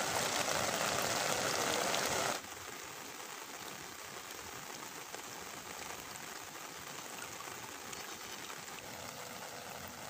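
Heavy rain falling on open water, a steady hiss of drops that drops suddenly to a softer level about two and a half seconds in.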